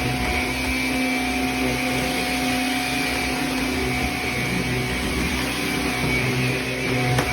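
Vacuum motor running steadily with a constant hum and whine, cleaning a carpet runner.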